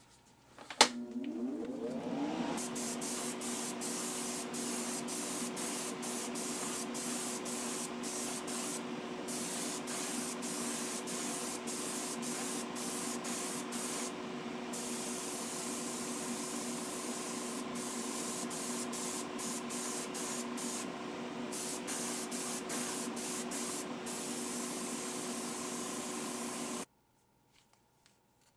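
Airbrush spraying paint in a steady hiss that drops out briefly a few times, over the hum of its air compressor, which rises in pitch as it starts about a second in and then holds steady. Both stop suddenly near the end.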